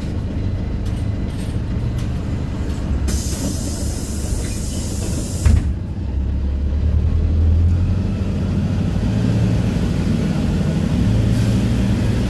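PAZ 320414 city bus heard from inside the cabin, its engine running with a low drone. About three seconds in a hiss starts, lasting about two seconds and ending in a sharp knock. The engine then pulls harder and rises slightly in pitch as the bus gets under way.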